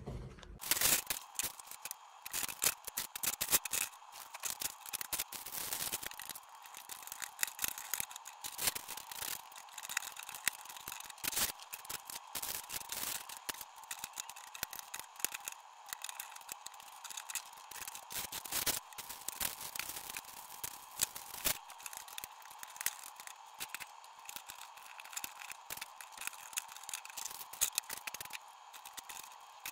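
Small plastic Cobi building bricks clicking and clattering as they are sorted on a tabletop and snapped together, a dense run of quick irregular clicks, with a steady faint hum underneath.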